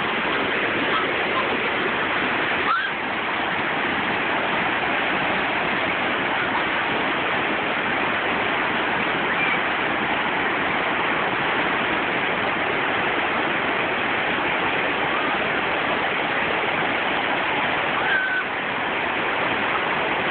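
Whitewater rapids pouring over sloping rock ledges: a steady, unbroken rush of churning water.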